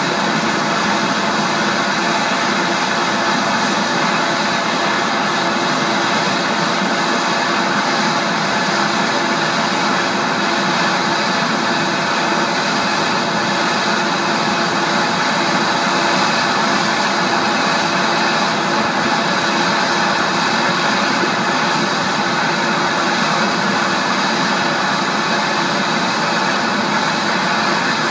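Jet airliner engines running steadily at low taxi power: an even rush with a few steady whining tones over it.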